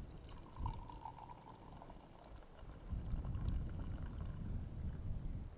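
Hot tea poured from a small camp kettle in a thin stream into an enamel mug, with a faint steady ringing tone from the mug through the first two seconds. A low rumble comes in about three seconds in.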